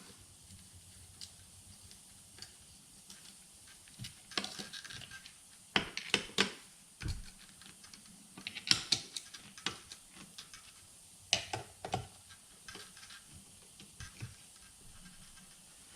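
Scattered light clicks and knocks of metal alternator parts being handled and fitted together, in irregular clusters with quiet gaps between.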